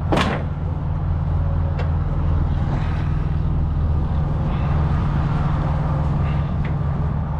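Steady low drone of an idling diesel truck engine, with one sharp click right at the start.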